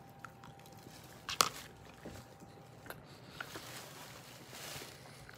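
A person biting into a piece of crispy fried food and chewing it, with one sharp crunch about a second and a half in and a few softer clicks of chewing after.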